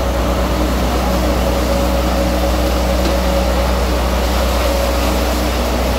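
Steady drone of a fishing trawler's engine and deck machinery: a low hum with a few constant tones, over the even hiss of water washing across the deck.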